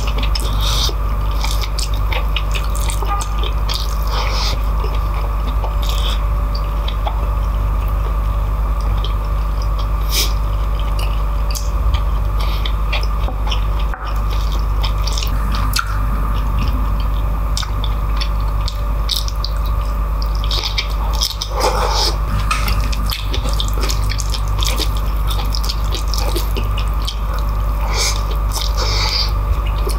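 Close-up eating by hand: wet, squishy chewing and lip-smacking of rice and beef in kare-kare's thick peanut sauce, with irregular small clicks of mouth and fingers working the sticky rice, over a steady low hum.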